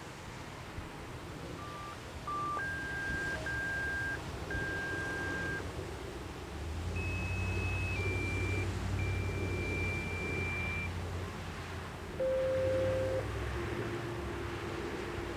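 A sequence of clean electronic beep tones, each held at one pitch and the pitches stepping about: two short beeps, three longer tones a step higher, three higher still, then two low tones near the end, over a low rumble. They are sequential signalling tones of the kind sent to activate an outdoor warning siren for its test.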